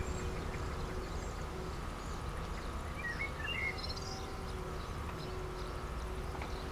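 Outdoor ambience: a steady low rumble of background noise, with a few faint bird chirps about three to four seconds in.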